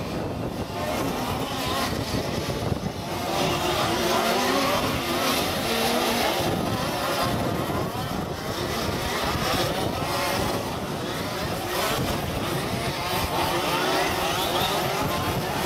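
A pack of large-scale radio-controlled 4WD off-road buggies racing. Their small two-stroke petrol engines rev up and down over one another as the cars accelerate and brake around the track.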